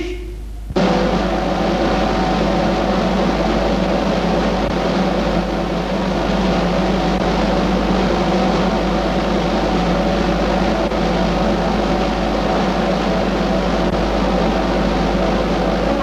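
A steady roll on pioneer snare drums, starting about a second in, with a held musical chord sounding under it. It is the ceremonial drum roll for the lowering of the flag.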